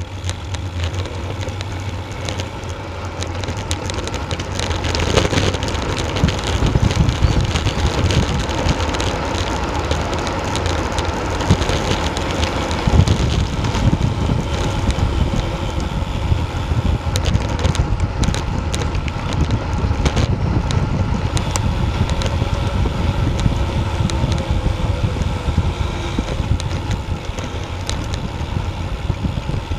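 Wind buffeting a Garmin VIRB action camera's microphone and road-bike tyres rolling on a rough lane while coasting downhill, getting louder about five seconds in as the speed rises. Scattered rattles and knocks from bumps in the road surface.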